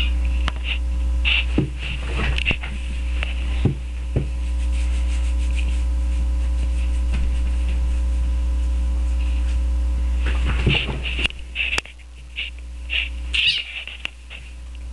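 Steady low electrical hum from the recording, broken by scattered soft knocks and brief rustles as cats scuffle among pillows, with clusters of these in the first few seconds and again near the end.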